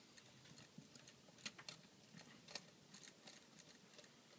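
Faint, scattered small clicks and ticks of a Phillips screwdriver tightening the terminal screws on an electrical outlet.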